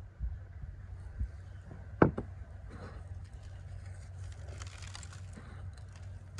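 A small ceramic jug set down on a wooden table with a sharp knock about two seconds in, then coarse salt sprinkled by hand over a raw goose, the grains landing in a light crackly hiss for several seconds. A low steady hum runs underneath.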